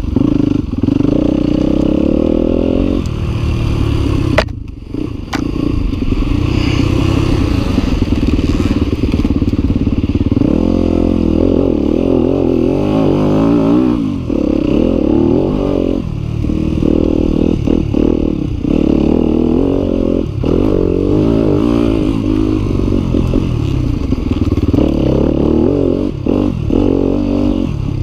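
Yamaha WR250F's four-stroke single-cylinder engine revving up and down as the bike is ridden, the throttle opened and closed over and over. The engine note drops briefly about four and a half seconds in.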